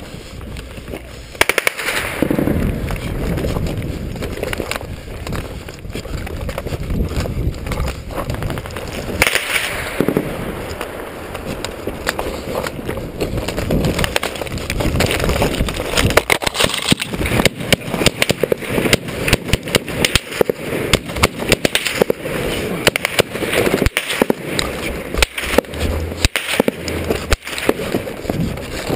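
Boots crunching and sliding on loose rock and gravel down a steep stony slope, with sharp cracks of gunfire that come thick and fast, several a second, over roughly the last half.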